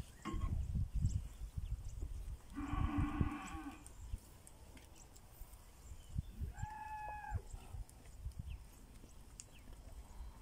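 Pinzgauer cattle mooing: one deep moo about three seconds in, lasting just over a second, then a higher-pitched call about three and a half seconds later. Low rumbling knocks fill the first few seconds.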